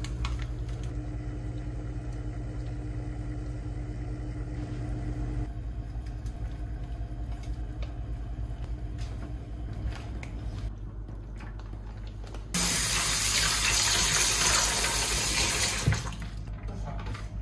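Kitchen tap running hard into a bowl in a stainless-steel sink for about three seconds near the end, the loudest sound here. Under it runs a steady low hum.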